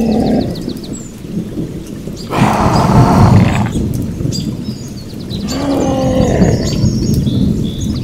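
Hippopotamus calling: a loud, rough bellow of about a second and a half near the middle, with lower pitched calls near the start and again later.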